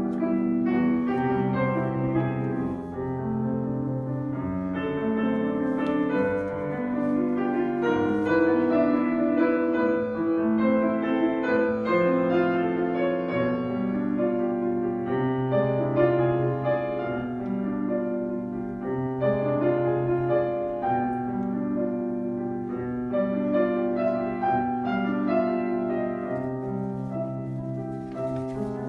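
Solo piano playing a classical piece, a melody moving over held bass notes.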